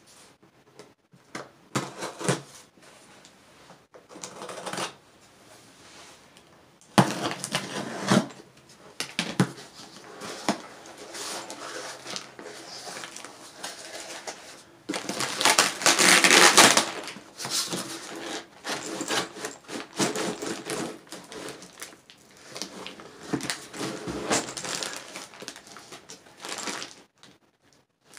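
Irregular scraping, tearing and rustling as a cardboard ammunition case is cut open with a knife and its flaps pulled back, then crinkling of the plastic bags of loose brass 5.56 cartridges inside as they are handled; the loudest stretch is about halfway through.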